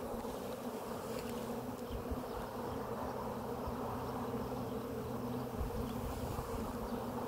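Honeybees of an opened hive buzzing in a steady, even hum, many wings together, around a brood frame covered in bees.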